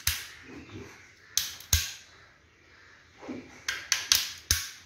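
Ratcheting scissor-type PPR pipe cutter clicking as it is squeezed closed through a green polypropylene pipe: sharp clicks at irregular intervals, several in quick succession near the end.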